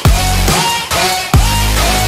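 Music: a heavy bass-driven electronic beat with bass notes that sweep down in pitch about every half second to second, with no vocals in this stretch.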